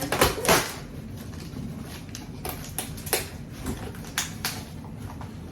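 Cardboard box holding a pots-and-pans set being handled and shifted. There are a couple of loud knocks right at the start, then scattered light taps and rustles over a low steady room noise.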